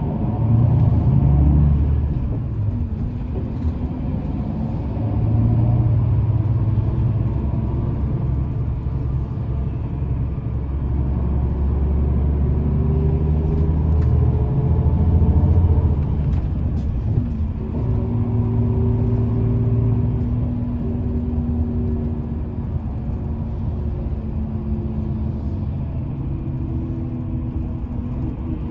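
Steady low rumble of motor vehicle engines, swelling and easing, with a steady engine hum in the second half.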